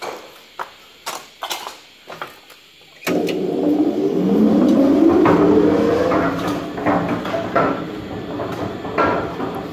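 A few clicks and knocks, then about three seconds in a mechanical guillotine plate shear's drive starts up: the motor and its large flywheel spin up with a rising hum, then run on steadily with some rattling.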